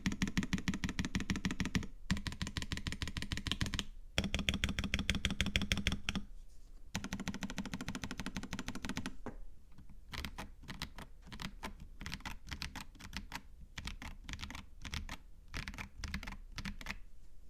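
Typing on a KBD67 Lite mechanical keyboard with lubed and filmed Tecsee Purple Panda tactile switches and Drop MT3 keycaps. It is fast and continuous with brief pauses for about nine seconds, then slows to separate, spaced-out keystrokes.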